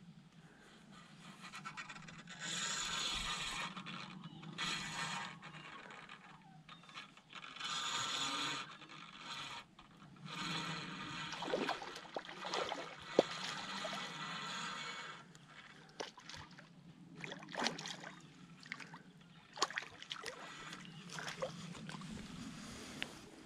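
Small spinning reel being cranked in bursts as a fish is reeled in, with sharp clicks and knocks of handling, and water splashing near the end as a fish is let go back into the pond.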